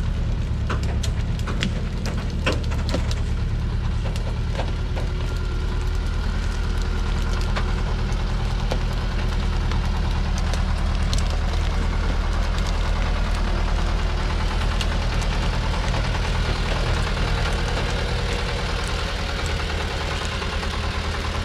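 Thaco truck's diesel engine running steadily at low revs, with a few sharp knocks in the first few seconds.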